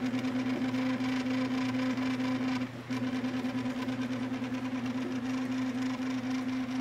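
Sintron kit 3D printer running: its stepper motors whine at a steady pitch with a fast, fine ticking as the print head moves, with a brief break about three seconds in.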